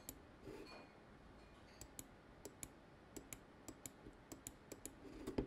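Computer mouse clicking: a run of faint, sharp single clicks at an uneven pace, as mask points are placed one by one with the pen tool.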